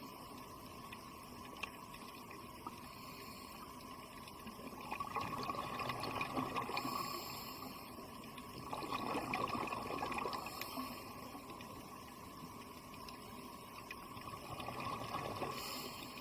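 Underwater ambience with a diver's exhaled air bubbling up in surges every few seconds, between short hissy breaths.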